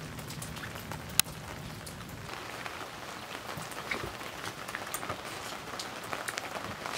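Light rain pattering on a boat's canvas canopy, with scattered drop ticks. A faint steady low hum fades out after about two seconds, and a single sharp click comes about a second in.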